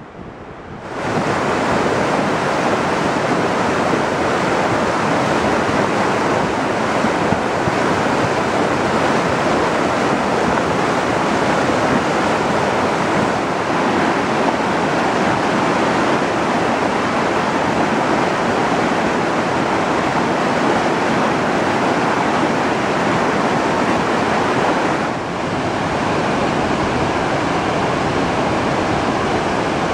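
Muddy flash-flood torrent rushing down a normally dry rocky stream bed: a loud, steady rush of churning water that starts about a second in and dips briefly near the end.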